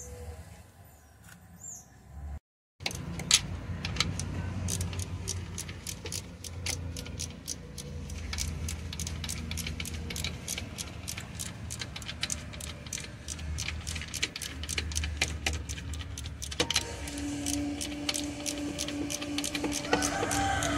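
Ratchet wrench clicking in quick, regular strokes, about five clicks a second, as a bolt on the engine is turned. The clicks start about three seconds in, over a low hum, and a steady hum joins about three-quarters of the way through.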